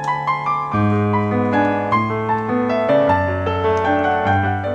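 Background music: a piano melody over held bass notes.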